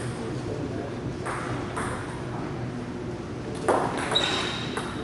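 Table tennis ball clicking off paddles and table: two separate hits, then a quicker run of strokes as a rally starts about three and a half seconds in.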